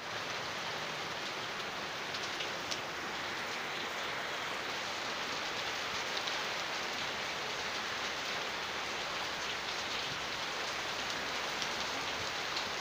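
Steady rain falling: an even hiss with scattered ticks of individual drops.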